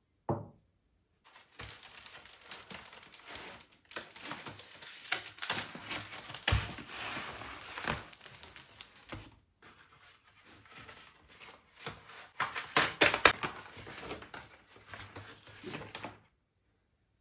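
Irregular crinkling and rustling, as of something being handled and crumpled, with many small clicks and knocks; it grows louder about three-quarters of the way through.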